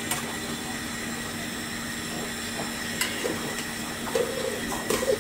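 Soaked, drained rice sizzling steadily as it fries in oil in an aluminium pot. A metal spoon clinks and scrapes against the pot a few times in the second half as the rice is stirred.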